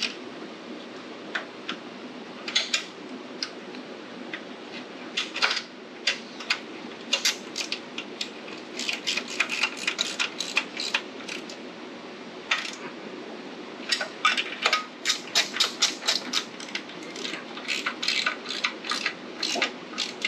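Wrench clicking and clinking on a minibike's engine mount bolts as they are tightened: irregular runs of sharp metallic clicks, busiest about halfway through and again through the last third.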